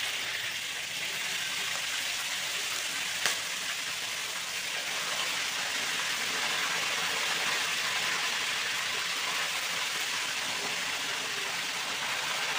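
Chicken pieces deep-frying in hot oil in a wok, a steady sizzle. A single sharp click about three seconds in.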